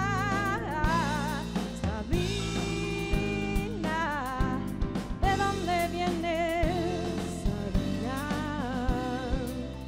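A woman singing a slow ballad in long, wavering held notes over a live band of keyboard, drum kit and bass, with regular drum hits underneath.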